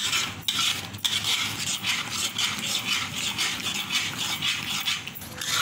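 A metal spatula scraping and clinking against a kadai, stirred fast through thick, bubbling wheat halwa cooking in ghee, with short repeated scrapes and knocks.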